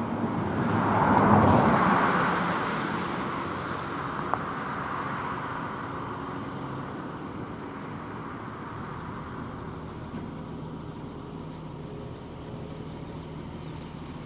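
A car passes close by, its tyre and engine noise swelling to a peak about a second and a half in and then fading, over steady road-traffic noise. There is one sharp click a few seconds in.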